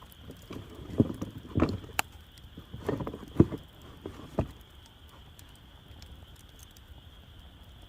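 Campfire with faint crackling, and a run of about five knocks and thumps of wood in the first half.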